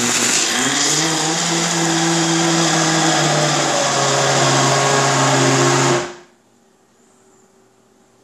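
Homeleader 70 oz countertop blender running hard, churning ice, berries and liquid into a smoothie, its motor pitch rising as it spins up in the first second. It stops suddenly about six seconds in, leaving a faint hum.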